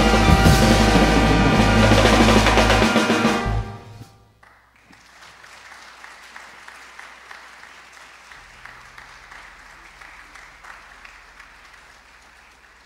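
A jazz big band of saxophones, brass, piano, guitar and drum kit holds a loud final chord over the drums, cutting off about three and a half seconds in. The audience then applauds steadily, fading out near the end.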